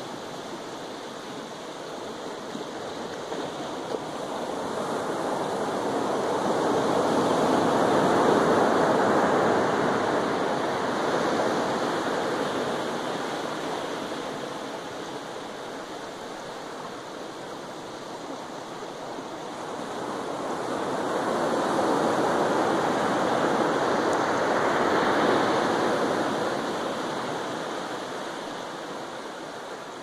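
Pacific Ocean surf breaking and washing up the beach: a steady rushing of water that swells twice, peaking about eight seconds in and again about twenty-five seconds in.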